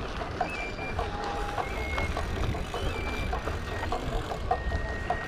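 Steady low rumble of a BMX bike rolling over a dirt and gravel path, with wind on the handlebar camera's microphone, scattered small clicks, and a few brief high tones.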